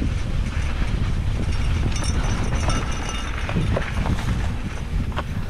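Wind noise on the microphone while a mountain bike rolls along a dirt trail, with scattered clicks and rattles from the bike going over bumps.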